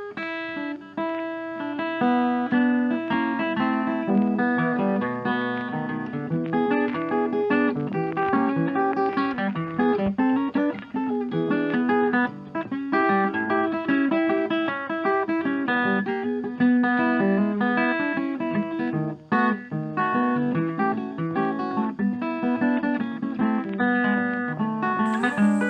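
Acoustic guitar music, plucked and strummed with a steady rhythm.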